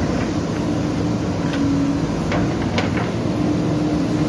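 JCB backhoe loader running steadily with a constant hum while its bucket digs into soil, with a few sharp metallic knocks from the bucket and arm in the middle.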